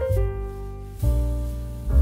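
Background music led by piano, sustained chords with a deep bass, a new chord struck about once a second.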